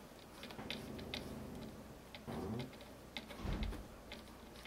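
Small metal tool clicks: a 2.5 mm hex key ticking and scraping in the bolt of the blue CTD remote cap on top of a Fox Float 32 suspension fork as the bolt is loosened. The clicks are faint and irregular, with soft handling bumps a little past halfway.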